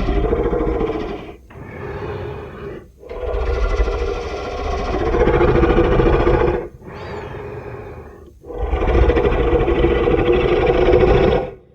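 Cartoon kaiju roar sound effects: a series of long monster roars, loud ones alternating with shorter, quieter ones, separated by brief breaks.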